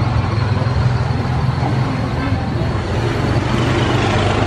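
Street traffic noise: a steady low engine drone from nearby motor vehicles, with road noise.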